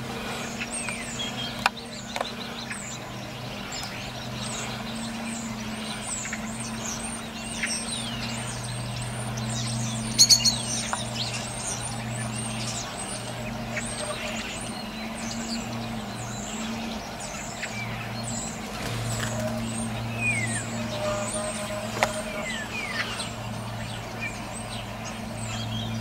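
A flock of starlings calling: many short whistles and chatters, with a steady low hum underneath and a brief clatter about ten seconds in.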